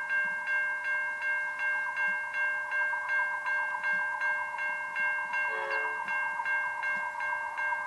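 Railway level crossing warning bell ringing: a rapid, even ding about three times a second over a steady ringing tone. A short falling chirp cuts in about five and a half seconds in.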